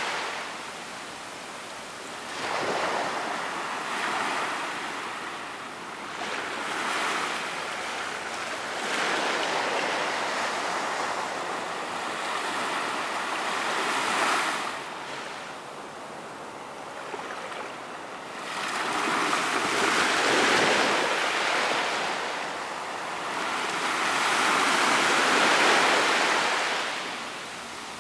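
Sea waves washing onto a beach, the surf swelling and fading in slow surges every few seconds, with the loudest surges near the end.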